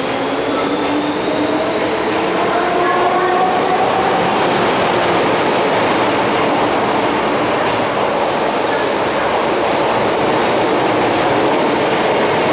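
MTR electric multiple-unit train running through an underground station without stopping. It makes a steady, loud rush of wheels on rail, and a whine rises in pitch over the first few seconds.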